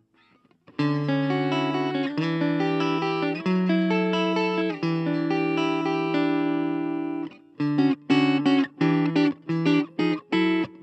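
Electric guitar (Suhr Classic Pro) played clean through a Blackstar Fly 3 mini amp: held chords and notes ring out, then about three-quarters of the way in the playing changes to short, choppy strummed chords.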